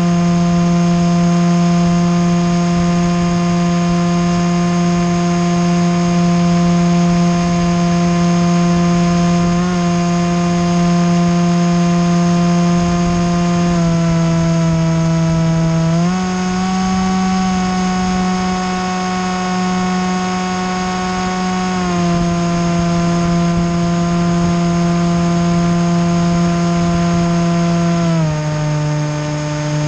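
Small propeller aircraft's motor droning steadily in flight. Its pitch steps down a little about halfway through, rises again a couple of seconds later, drops back, and falls again near the end as the throttle is changed.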